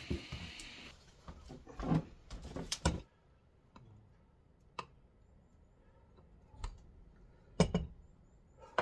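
Glass mugs and a glass blender jug handled on a wooden table while blended fruit juice is poured: scattered clinks and knocks, loudest about two and three seconds in and again near the end.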